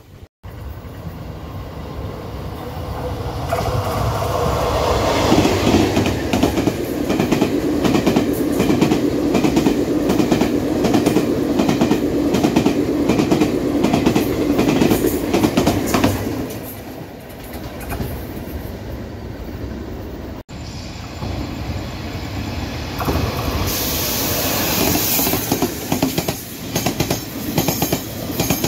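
A Taiwan Railway electric locomotive hauling a push-pull trainset passes, its wheels clacking over rail joints in a steady rhythm that is loudest from about five to sixteen seconds in. After a cut about twenty seconds in, a second locomotive-hauled push-pull set comes by with rising wheel and rail noise and a high hiss.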